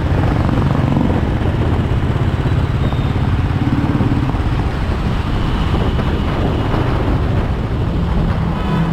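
Motorcycle engine running steadily while riding in traffic, heard from the rider's seat.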